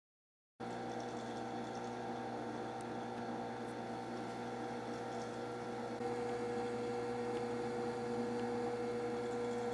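WEN 4210 10-inch benchtop drill press with a 3.2 amp motor, running at its lowest belt speed of 600 RPM: a steady hum made of several held tones, starting about half a second in. One tone grows a little louder about six seconds in.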